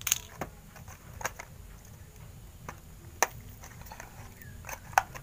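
Handling noises from a small cardboard camera box and a clear plastic packaging tray: scattered sharp clicks and taps, the loudest about three seconds in and again near the end.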